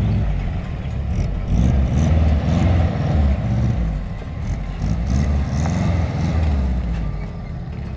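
Air-cooled flat-four boxer engine of a classic Volkswagen Beetle running as the car drives, a deep rumble that swells and eases.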